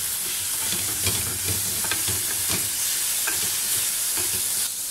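Chopped onion and ginger-garlic paste sizzling in a little oil in an aluminium pan while a wooden spatula stirs them, scraping and tapping against the pan in short clicks over a steady hiss. The sizzle dips briefly near the end.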